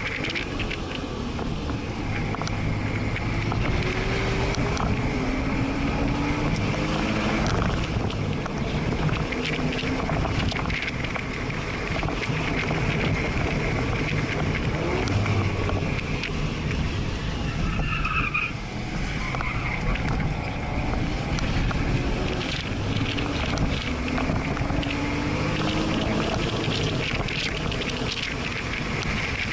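Porsche flat-six engine heard from inside the cabin while the car is driven hard, its pitch rising again and again as it accelerates through the gears, over steady road and wind noise. There is a brief tyre squeal about eighteen seconds in.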